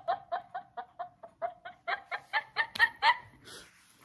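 High-pitched giggling fit of an overtired person: a long run of quick 'ha' pulses, about six a second, climbing in pitch and stopping about three seconds in.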